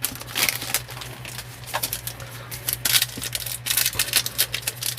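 Trading cards and a foil card-pack wrapper being handled, with quick irregular crinkles, taps and clicks over a steady low hum.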